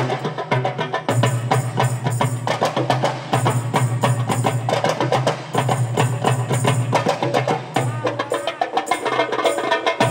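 Marawis ensemble playing an instrumental drum passage: small hand drums struck in a fast, dense interlocking rhythm, with deep strokes from a barrel-shaped double-headed drum underneath.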